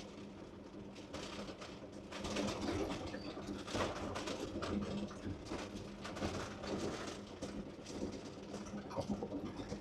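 CAT D6R dozer with its C9 diesel engine running steadily as the machine travels, a constant drone under irregular clanks and rattles.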